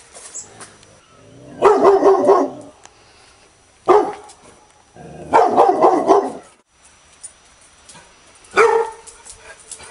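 Angry dog barking: a run of rough, rapid barks about a second and a half in, a single sharp bark near four seconds, another run of barks a little after five seconds, and one more single bark near the end.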